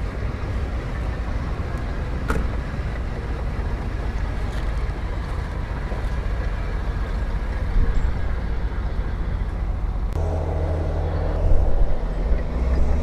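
Heavy diesel earthmoving machinery running steadily, with a single sharp click about two seconds in. About ten seconds in, a louder engine note with a steady pitch cuts in suddenly and holds.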